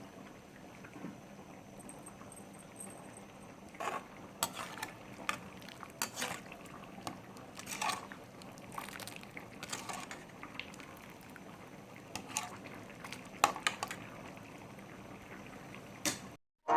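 Pot of tamarind-pepper rasam simmering on the stove: faint bubbling with irregular sharp pops, roughly one a second.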